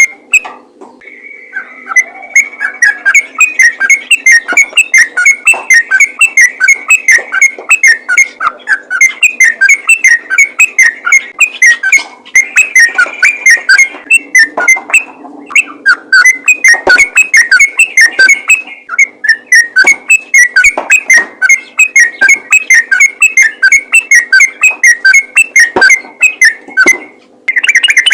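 Yellow-vented bulbul (trucukan) in full song: loud, rapid runs of bubbly whistled notes, about four or five a second, in bouts broken by short pauses, the kind of call used to lure other bulbuls.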